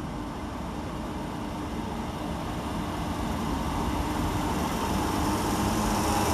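Class 319 electric multiple unit pulling out of the station, its running noise and steady hum growing gradually louder.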